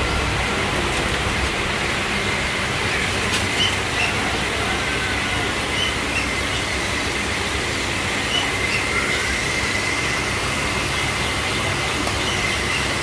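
Steady rushing outdoor noise with a thin, steady high whine and a few faint, short bird chirps scattered through it.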